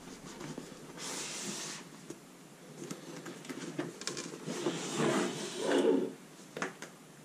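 A fabric drone carrying bag is slid out of a cardboard box. There is a short scraping hiss about a second in, then several seconds of rubbing and bumping of the bag against the cardboard as it comes free.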